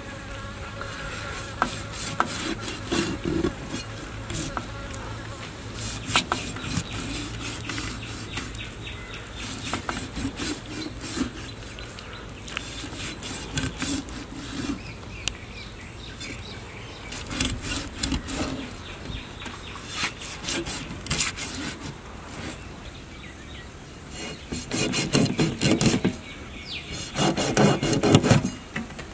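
Large curved knife cutting diagonal scoring slashes into the skin and flesh of a big descaled fish on a metal tray: repeated short rasping cuts and scrapes, louder near the end.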